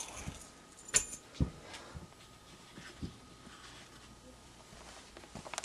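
A few light knocks and a sharp metallic clink, about a second in, as small pocket items are picked up and set down on a surface.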